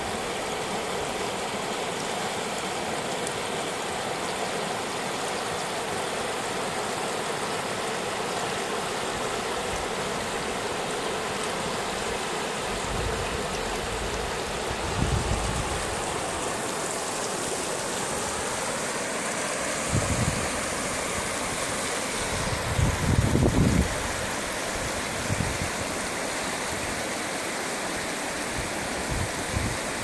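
Shallow river water flowing steadily over a rocky limestone bed and small riffles. A few brief low rumbles come through partway in and near the end.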